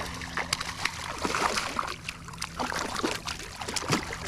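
Water splashing and trickling close by, in many short irregular splashes over a low steady hum.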